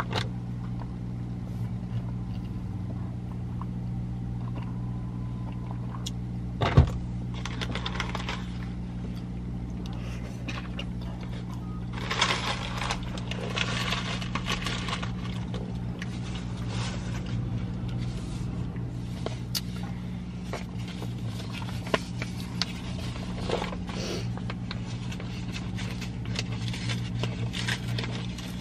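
Steady low hum of a parked car idling, heard from inside the cabin, with scattered rustling and small clicks and one sharp knock about seven seconds in.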